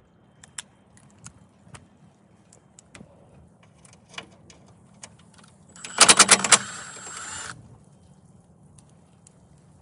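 Light metallic clicks of hand tools, quarter-inch socket work on an engine's fasteners, then about six seconds in a loud burst of rapid metallic clatter lasting about a second and a half before cutting off.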